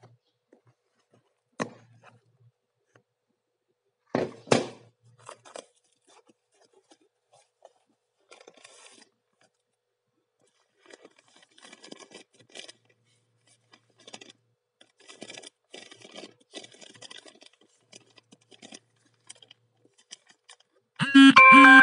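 Hands handling and opening a small cardboard box, with a few sharp knocks, then a plastic parts bag crinkling and rustling as it is opened. Near the end, a loud ringing chime jingle begins.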